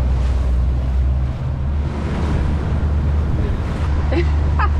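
Wind buffeting the microphone over the rush of water along the hull of a center-console motorboat under way at speed.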